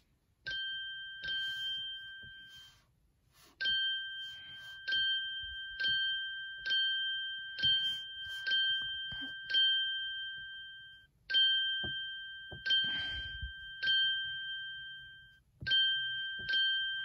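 A bright ding chime from a children's calendar web app on a touchscreen computer, played through the computer's speaker. It rings again each time a day is tapped to mark it, about fourteen times at an irregular pace of roughly one a second. Each ding holds its tone until the next one starts.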